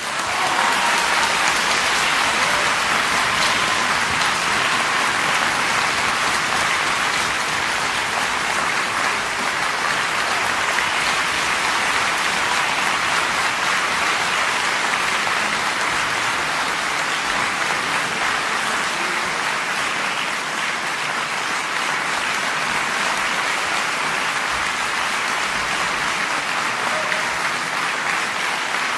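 Concert-hall audience applauding: a dense, steady clapping that follows the final chord of the concerto.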